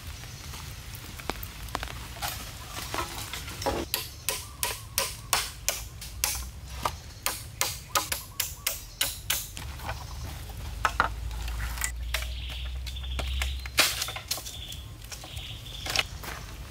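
A blade being knocked into a green bamboo culm to split it lengthwise: a run of sharp knocks, about two a second, then a few louder single cracks near the end.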